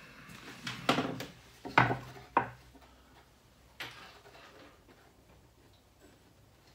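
Wooden knocks and clatter from a homemade plywood spice rack and loose pine boards being handled and set against a table top: a cluster of sharp knocks in the first two and a half seconds and one more about four seconds in.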